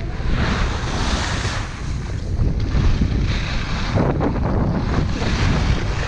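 Wind noise on a skier's camera microphone, with the hiss of skis on groomed snow swelling and fading with each turn every second or two.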